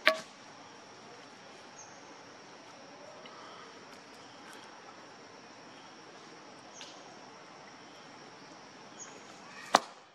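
Steady outdoor background with a thin, high insect-like hum and a few faint short chirps, broken by two sharp clicks, one at the very start and one near the end.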